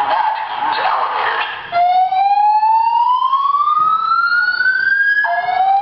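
Fire alarm sounding a slow 'whoop' evacuation tone: a loud tone that rises steadily in pitch for about three and a half seconds, drops back, and starts rising again. The tone comes in about a second and a half in.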